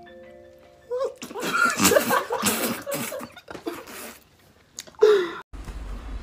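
A brief held musical chord, then a man's vocal reaction to the sour bite of a lemon: a string of sharp, noisy bursts of breath and strained groans, with a short falling groan about five seconds in.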